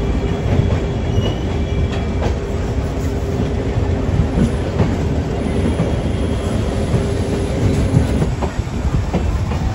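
Express train rolling slowly out of a station yard, heard from an open door of a coach. The wheels make a steady low rumble with scattered clacks over rail joints and points, and a faint steady tone fades out near the end.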